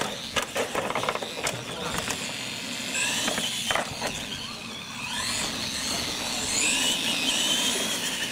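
Radio-controlled monster truck's electric drivetrain whining as it drives, the whine rising in pitch as it speeds up, with a few sharp knocks in the first two seconds.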